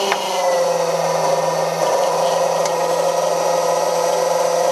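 Electric motor-driven hydraulic pump of a CVRT Striker running steadily to drive the ram that raises the ATGM launcher, a constant hum with a higher whine over it. Its pitch dips slightly about two seconds in.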